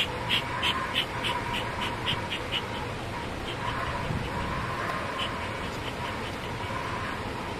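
Bee smoker's bellows pumped quickly, each squeeze giving a short squeaky puff, about three a second for the first couple of seconds, then fainter, more spaced puffs.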